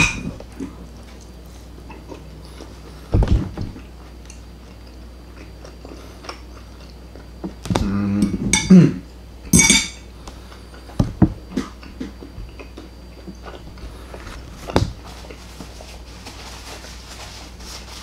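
Metal knife and fork clinking and scraping against ceramic plates while steak is cut and eaten. The strokes come sporadically, with louder clusters about three seconds in and again around eight to ten seconds in.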